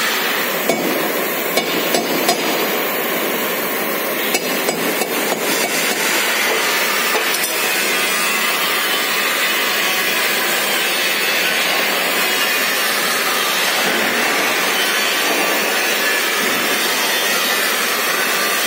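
Gas welding torch flame hissing steadily during brazing, with a scatter of light metallic clicks and taps in the first several seconds.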